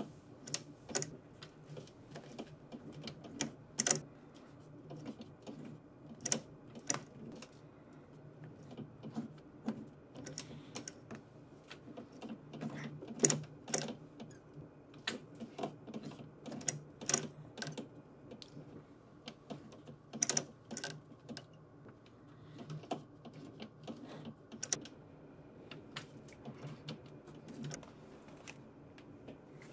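Industrial sewing machine with a roller presser foot stitching leather slowly, stitch by stitch: irregular sharp clicks of the needle and mechanism over a low steady motor hum.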